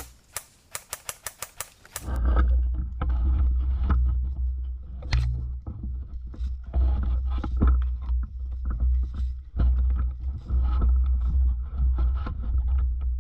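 A quick string of about eight sharp shots from an airsoft gun, roughly five a second, then a heavy low rumble of wind and movement on the microphone with scraping and rustling through to the end.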